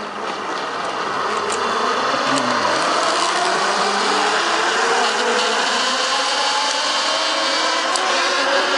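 Zipline trolley pulley running along the steel cable, a loud, steady whir that builds over the first second as the rider takes off and then holds.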